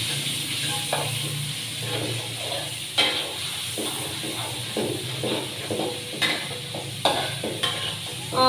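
A metal spatula stirring and scraping food in a large wok while it sizzles. Several sharp clinks of the spatula against the pan are spread through it.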